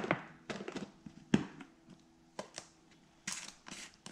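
Scattered short knocks and clatters of kitchen utensils and containers handled over a glass mixing bowl, the loudest knock about a second and a half in.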